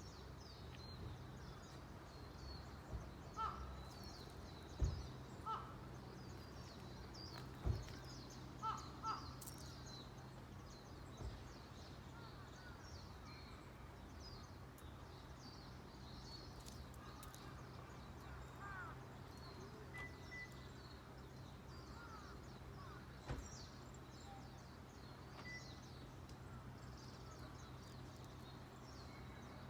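Crows cawing a few times in the first third, with small birds chirping faintly and continuously, a few sharp knocks and a low steady hum underneath.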